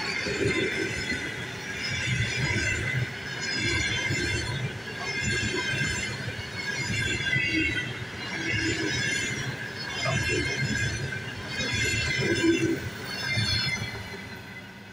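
Russian Railways passenger coaches passing close at speed: wheels rumbling and clattering on the rails, swelling about every one and a half to two seconds as each pair of bogies goes by, with a high ringing from the wheels in each swell. The sound fades near the end as the last coach passes.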